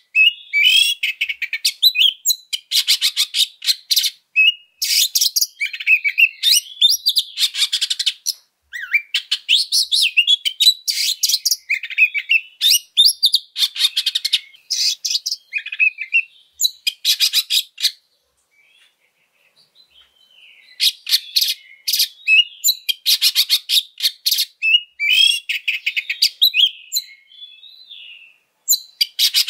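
Oriental magpie-robin singing a fighting-mood song: loud bursts of rapid, harsh chattering notes mixed with whistled, sliding phrases. The song breaks off for about two seconds roughly two-thirds of the way through, then resumes.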